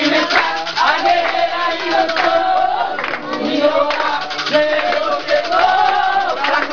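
A group of voices singing an Umbanda chant together, with rhythmic hand clapping and crowd noise.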